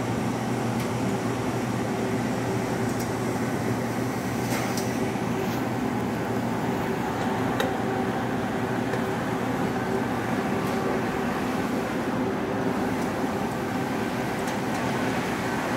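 Steady hum of refrigeration machinery running: the compressors and fans of open-type display chillers, with a few light clicks about four and a half and seven and a half seconds in.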